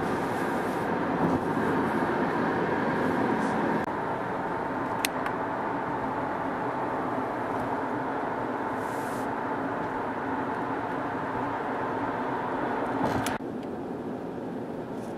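Steady road and engine noise inside a moving car, with a couple of brief clicks. Near the end it drops to a quieter steady noise.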